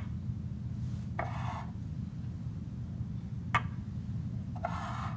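A chess piece set down on the board with one sharp click about three and a half seconds in, between two brief soft rubbing sounds, over a steady low hum.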